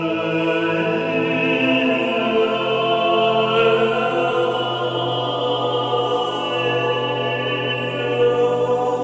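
Music: sustained, chant-like choral voices holding long notes over a steady low drone.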